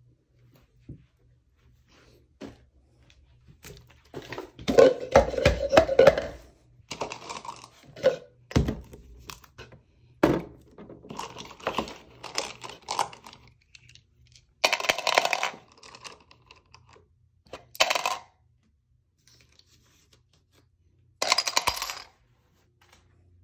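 Dice and small plastic game pieces clattering into a clear plastic jar as they are dropped in and stirred by hand, in a series of rattling bursts separated by short pauses.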